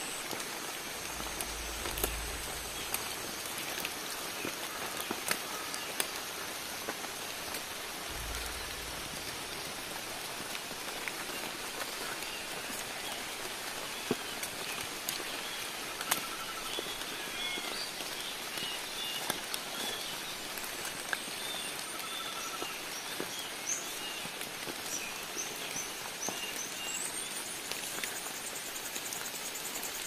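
Steady patter of rain on forest foliage, with scattered sharper drips. Small birds chirp now and then through the second half.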